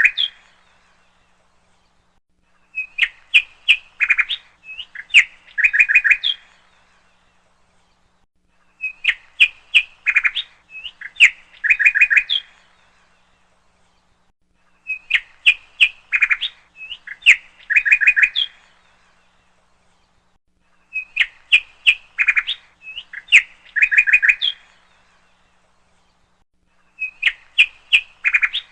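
A bird chirping in bouts of quick, high chirps, each bout lasting about three and a half seconds with a short silence between. The same bout repeats every six seconds, like a looped recording.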